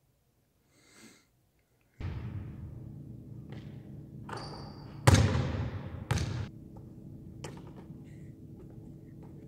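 A rubber ball hitting the hard floor of a large gym hall, with two loud bounces about a second apart that ring on in the hall's echo, and a few lighter knocks around them. A steady hall hum runs underneath.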